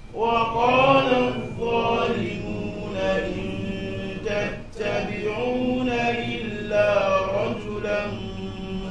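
A man reciting the Qur'an in Arabic in a melodic chant (tajwid), holding long drawn-out notes that bend in pitch, with a short pause for breath about halfway.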